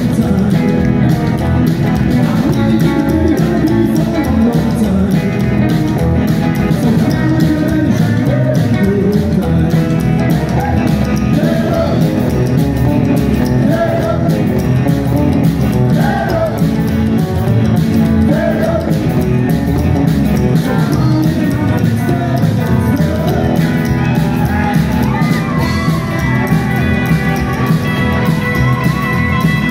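Rockabilly band playing live: upright double bass, electric hollow-body guitar, acoustic guitar and drum kit, with a voice singing over them.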